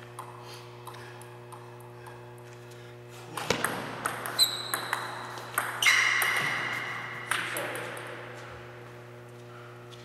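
Table tennis ball bounced lightly a few times before the serve, then a short rally of sharp ticks of the celluloid-type ball on paddles and table from about three and a half seconds in. Near six seconds a loud ringing tone fades away over about a second and a half. A steady electrical hum runs underneath.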